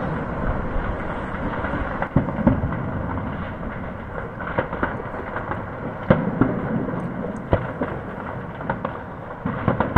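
Distant gunfire in a city at night: scattered sharp cracks at irregular intervals over a continuous low rumble, the loudest cracks about two and six seconds in.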